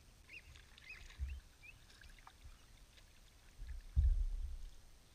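Sea kayak being paddled on calm water: a dull low thump about a second in and a longer one near four seconds in, as the paddle strokes knock through the hull. A few faint high bird chirps in the first two seconds.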